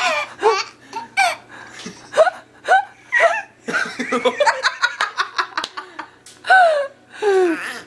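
Baby laughing in a run of short, high-pitched bursts and squeals.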